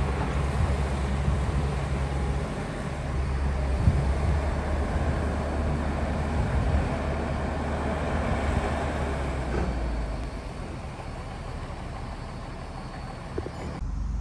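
Heavy diesel engine of an excavator running with a steady low hum and rumble, dropping somewhat quieter after about ten seconds.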